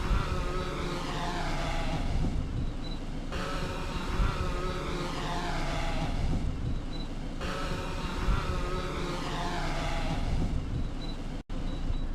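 DJI Mavic 2 quadcopter's propellers whining as it comes down to land, the pitch gliding downward again and again, with wind buffeting the microphone.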